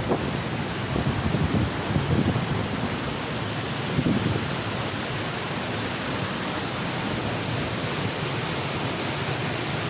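Mountain waterfall rushing as a steady, even roar of falling water, with a few low gusts of wind buffeting the microphone in the first half.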